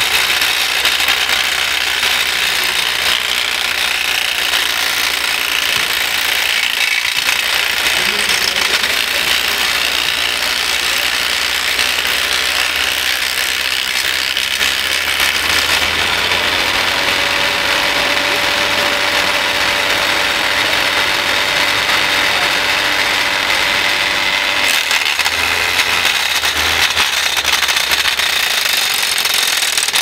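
Handmade RC scale model wood chipper (Wüst Hacker replica) running steadily, chipping branches fed into its infeed, an even mechanical clatter without a break.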